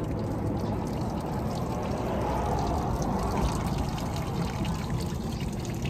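A man urinating: a steady stream of urine trickling and splashing.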